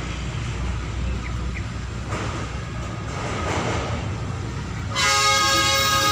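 Small diesel shunting locomotive approaching with a steady low engine rumble, then sounding its horn in one loud, held blast from about five seconds in.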